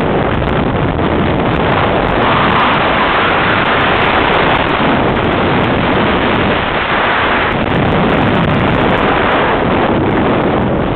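Heavy wind rushing over the microphone of a camera held out the window of a car at highway speed. Under it sits the steady running of the 1978 Pontiac Firebird Formula, with its rebuilt Chevy 350 V8, and its tyres on the road.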